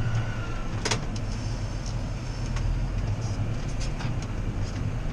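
John Deere 6R tractor engine running steadily under ploughing load, with one sharp click about a second in and a few faint ticks after it.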